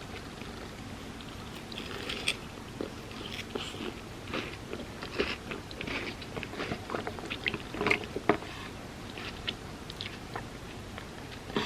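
Close-miked chewing of crunchy chocolate wafer pieces filled with hazelnut cream, eaten as cereal in milk: irregular crisp crunches and wet chewing.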